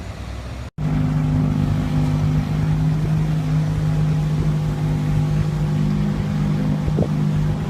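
A vehicle engine running at a steady pitch, an even low hum, which starts after a sudden break to silence about a second in.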